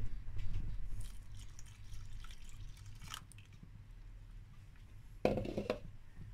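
Milk poured from a jug into a saucepan of thick béchamel sauce: a soft liquid pour with light clicks and scrapes, over a low hum. A brief louder sound comes about five seconds in.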